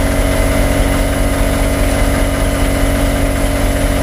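A machine's engine running steadily at an even speed, a constant drone with a fixed pitch and no change in speed.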